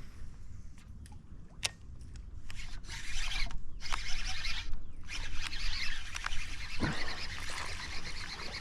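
Fishing reel being cranked to retrieve a topwater popper, a dense rattly whirring that comes in spurts with short pauses, after a single sharp click.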